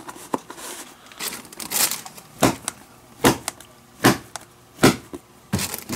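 Leather catcher's mitt being handled with a soft rustle, then its pocket struck by a hand in a run of sharp slaps just under a second apart, from about two and a half seconds in.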